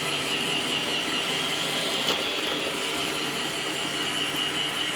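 iRobot Roomba 650 robot vacuum running steadily, with one light knock about two seconds in.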